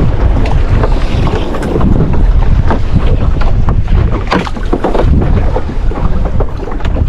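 Loud wind buffeting the microphone over the noise of a small boat moving through the sea.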